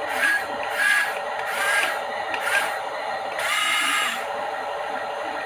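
Small electric motor and gearbox of a WPL D12 RC truck whirring in short spurts, with one longer run near the end.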